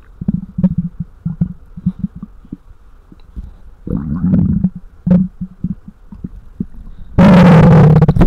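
Human stomach growling, picked up by a microphone held to the belly: a run of short low gurgles and pops, a longer gurgle about four seconds in, then a very loud drawn-out growl near the end.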